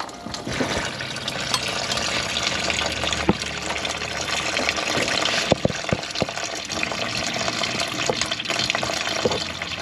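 Engine coolant pouring in a steady stream out of the radiator as the cooling system is drained, with a few sharp knocks partway through.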